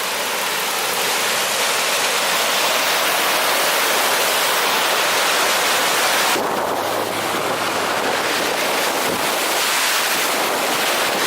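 Floodwater runoff rushing and pouring under a road: a loud, steady hiss of moving water. The highest part of the sound thins a little about six seconds in.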